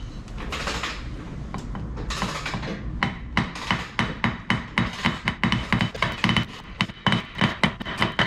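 A hammer tapping an oil seal into the rear housing of a BMW E39 M5's Getrag 420G transmission. After some handling and rubbing noise, quick light taps begin about three seconds in, at about three or four a second.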